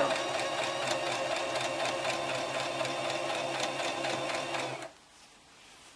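Brother XL2600 electric sewing machine running steadily while stitching a straight seam, then stopping abruptly about five seconds in.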